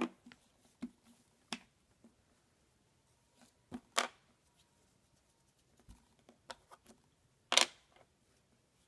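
Scattered clicks and knocks of plastic Play-Doh playset pieces being handled, a few sharp ones with the loudest near the end.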